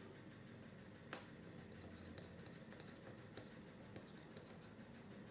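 Near silence: faint scratches and small ticks of a soldering iron tip and fingers working on a small circuit board, with one sharper click about a second in.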